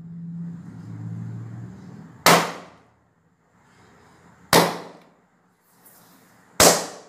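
Three latex balloons popped one after another with a needle, each a single sharp bang about two seconds apart. The balloons are being burst inside set chocolate shells to free the cups.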